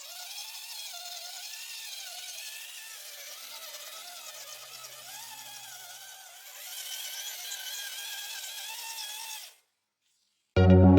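Whine of an RC scale crawler's 540 brushed 45-turn electric motor and drivetrain, wavering up and down in pitch; it gets louder about six and a half seconds in and cuts off abruptly. Loud electronic music starts near the end.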